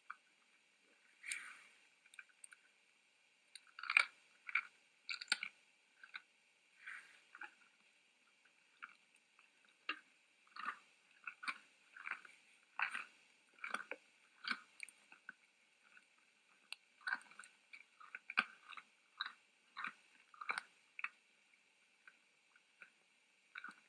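Red deer chewing and crunching feed: faint, irregular crunches, loudest about four seconds in.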